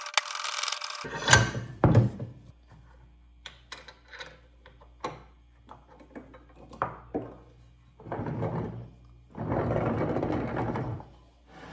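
Ductile cast iron bench vise being worked by hand: metal rubbing as the jaw slides, two sharp knocks in the first two seconds, then scattered light clicks and clanks from the handle and jaw, and two stretches of rubbing at about eight and ten seconds.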